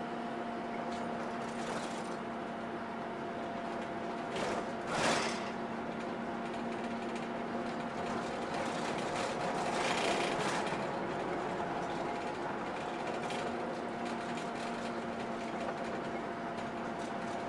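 Interior sound of a route bus driving along: a steady engine and drivetrain drone with a held whine over road noise. A brief louder rush of noise comes about five seconds in, and a smaller swell around ten seconds.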